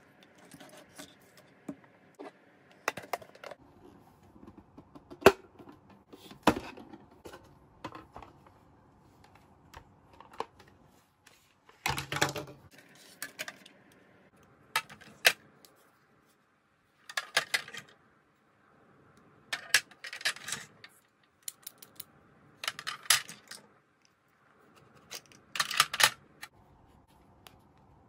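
Plastic pieces of a Hello Kitty toy nurse playset being handled: irregular sharp clicks and short clattering clusters as the hard plastic parts are picked up, knocked together and put down, with brief quiet gaps between.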